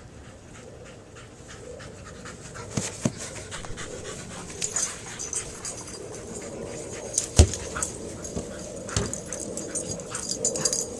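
A dog panting, with scattered clicks and several sharp thumps, the loudest about seven and a half seconds in.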